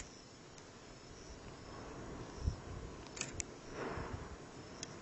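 Erupting volcano's lava fountain giving a faint, steady rumble. A low thump comes about two and a half seconds in, and a pair of sharp clicks just after three seconds.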